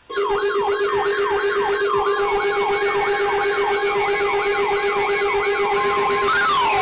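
Electronic siren yelping rapidly, about three rising-and-falling sweeps a second over a steady lower tone, changing near the end to a slow wail.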